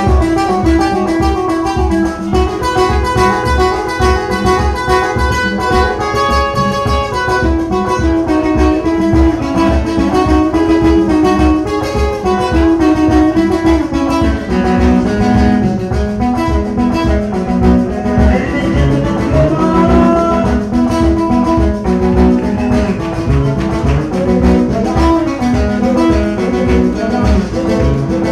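Band music: a guitar-led melody over a steady drum beat.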